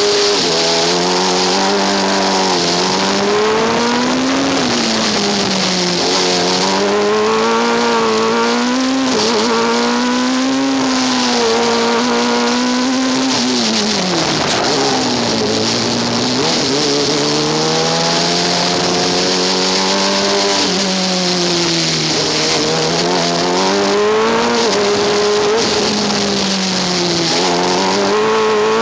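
Formula Student race car engine heard onboard while lapping, its revs rising and falling over and over as it accelerates and slows, with the deepest drop in revs about halfway through.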